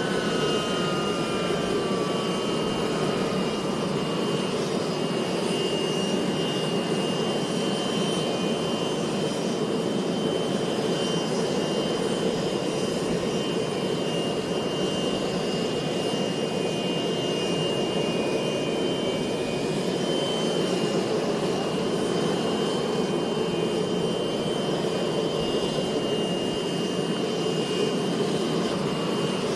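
Twin rear-mounted turbofan engines of a business jet running at low taxi power: a steady jet noise with a high whine held throughout. In the first few seconds a few whining tones glide down in pitch.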